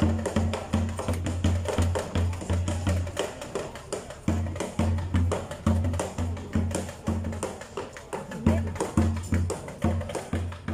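Percussive music with a steady, repeating low drumbeat and sharp wood-block-like clicks.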